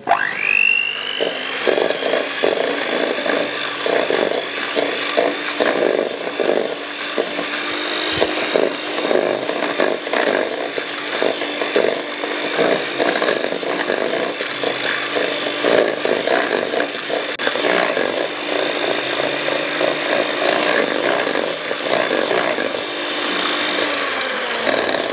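Handheld electric mixer switched on and running with its beaters in a stainless steel bowl, creaming butter and sugar for a cake batter. The motor spins up with a quick rising whine, runs at a steady pitch with the beaters rattling against the bowl, and winds down near the end.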